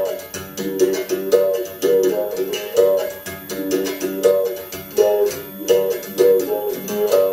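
Music on a strummed plucked-string instrument: a quick, steady strum with chords rising and falling in a repeating pattern.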